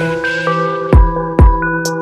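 Electronic background music: held synth notes stepping from pitch to pitch, with two heavy drum hits about a second in.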